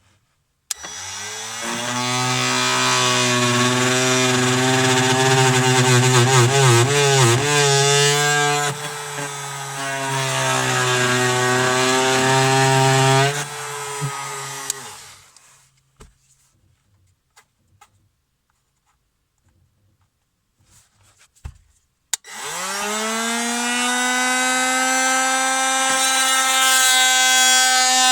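Metabo MT 18 LTX cordless oscillating multi-tool with a wood-cutting blade, sawing into wooden cupboard panelling. Its high whine starts about a second in, wavers in pitch as the blade bites, and winds down after about fourteen seconds. After a pause with a few faint clicks, the tool starts again about two-thirds of the way through.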